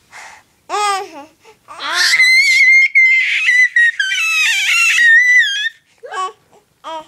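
Baby squealing with excitement: a short vocal sound, then a long, very high-pitched squeal lasting about four seconds and wavering in pitch, then two short squeaks near the end.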